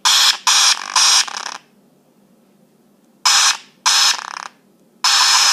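An iPhone 5s speaker glitching, giving out short bursts of harsh, crackly static in place of its normal keyboard and text sounds when a text is typed or sent. There are about six bursts, each under half a second: three in quick succession at the start, then three more after a pause of about two seconds.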